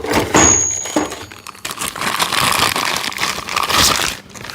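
Packaging rustling and crinkling as a large 1-inch drive impact socket is undone and pulled from its case, with a couple of knocks in the first second.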